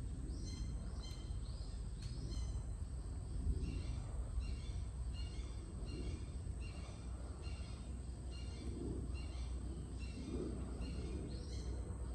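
A songbird singing the same short phrase over and over, about twice a second, above a steady low outdoor rumble.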